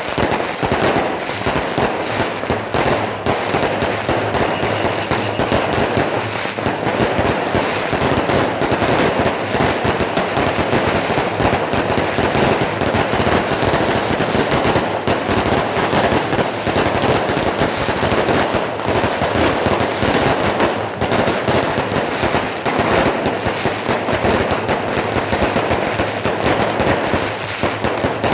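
Firecrackers and fireworks going off in a dense, unbroken crackle at the temple entry of a Taiwanese procession.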